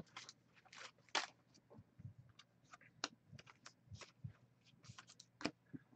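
Faint handling noise of trading cards and their packaging: scattered light clicks, taps and brief scrapes, with no steady sound between them.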